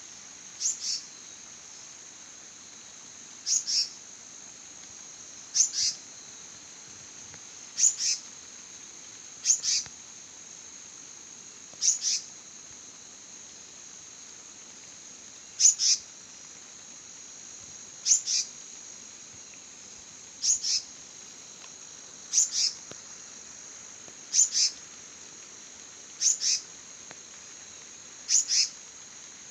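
A bird repeating a short high two-note call about every two seconds, over a steady high-pitched insect trill.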